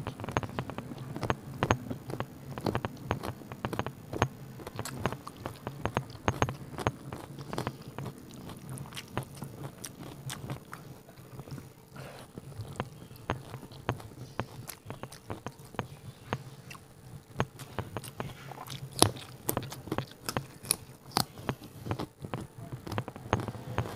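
Close-miked eating sounds: a person biting and chewing mouthfuls of rice and spicy chicken curry eaten by hand, with many short mouth clicks throughout.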